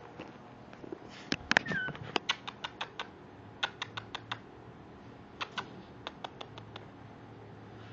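Young Maltese puppies' claws clicking and scratching in quick, irregular runs, with a short high whimper about two seconds in.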